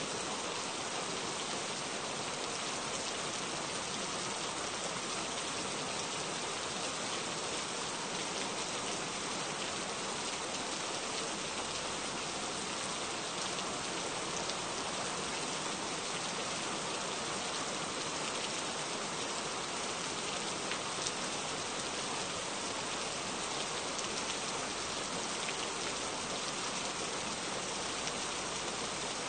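Gentle, steady rain falling: an even hiss with a few faint drop ticks scattered through it.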